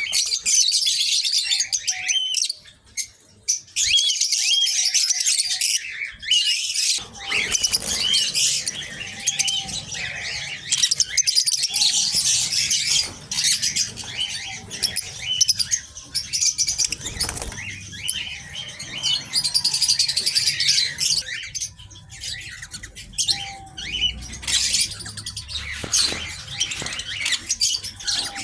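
A flock of small aviary birds chirping and chattering at once, a dense high twittering of many overlapping calls, with occasional wing flutters.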